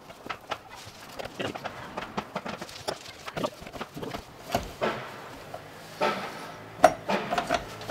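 Irregular metallic clicks and clinks of a socket wrench on an extension bar working a nut loose at a car battery, with a sharper knock near the end.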